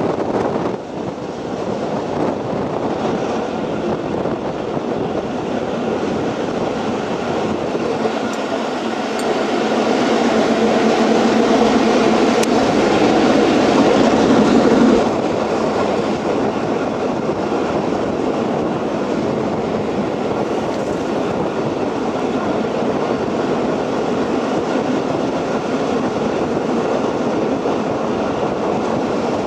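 Steam-hauled passenger train running through a tunnel, heard from the carriage window: a steady rushing rumble of wheels and air. It grows louder for a few seconds near the middle, then settles again.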